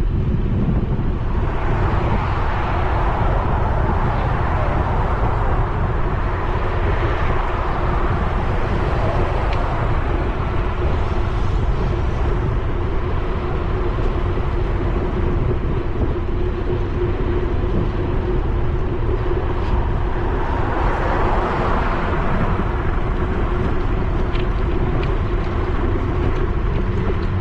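Wind rumbling on a bike-mounted action camera's microphone while cycling along a road, with the tyre and engine noise of cars swelling past three times.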